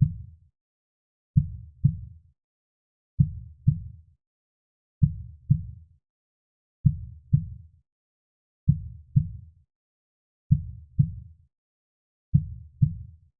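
Heartbeat: paired low thumps, a lub followed closely by a dub, repeating slowly and evenly about once every two seconds, with silence between the beats.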